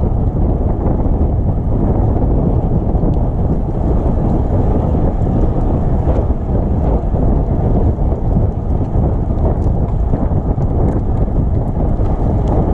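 Wind buffeting the microphone: a loud, steady low rumble that never lets up.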